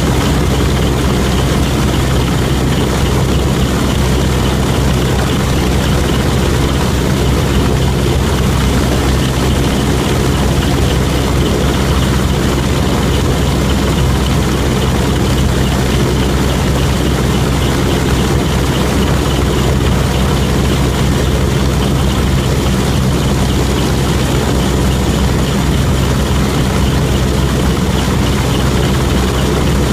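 Steady, loud drone of a transport aircraft's engines in flight, mixed with rushing air, heard from inside the cargo hold with the rear ramp lowered and open. It holds unchanged throughout.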